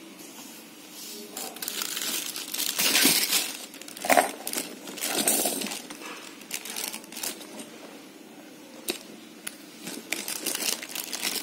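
Plastic packaging crinkling and rustling while a quilted handbag is handled, in irregular bursts with scattered sharp clicks.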